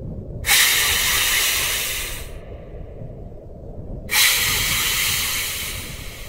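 Two long hisses, the first about half a second in and the second about four seconds in. Each starts suddenly and fades away over about two seconds, over a steady low rumble.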